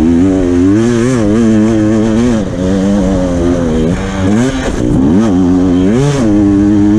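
Dirt bike engine heard from on the bike while riding a motocross track. The pitch repeatedly climbs under throttle and drops sharply as the throttle is backed off, several times over the stretch.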